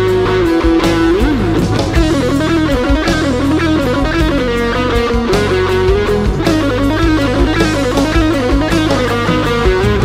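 Electric guitar played through a Boss OS-2 overdrive/distortion pedal: a lead melody of held notes with bends and vibrato, with steady bass notes and a beat underneath.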